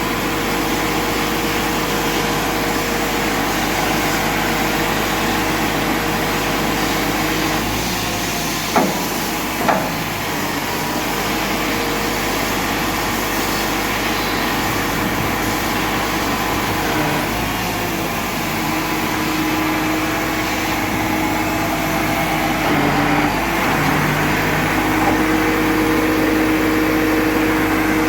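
Crane truck's engine running steadily, its note shifting a couple of times in the second half. Two sharp knocks sound about nine and ten seconds in.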